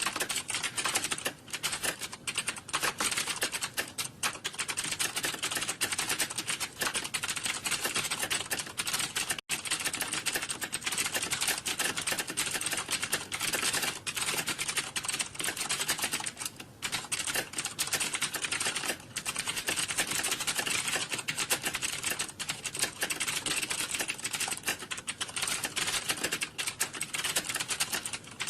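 Computer keyboard typing: fast, continuous key clicks with no pauses, like the clatter of a typing-test hall.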